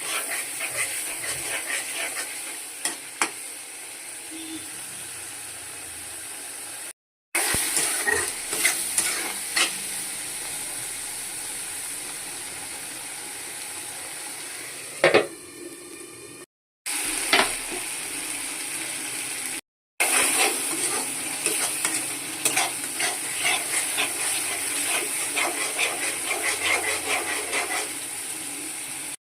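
Fish curry frying in hot oil in a pan: a steady sizzle, with a spatula stirring and scraping against the pan in frequent clicks and knocks. The sound breaks off abruptly three times.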